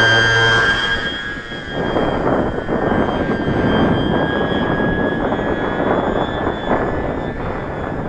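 The electric motor and folding propeller of an RC motor glider running at full power after a hand launch: a steady high whine that fades over several seconds as the glider climbs away. Wind buffets the microphone from about a second and a half in.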